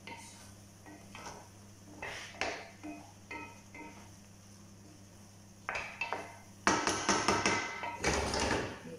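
Wooden spoon stirring cooked rice in an enamel pot, with scattered knocks and scrapes against the pot. These turn louder and busier for the last two seconds or so.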